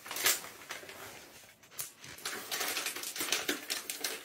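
Crinkly plastic treat bag being rustled and shaken to lure kittens out, in short crackling bursts: one at the start and a run of them through the second half.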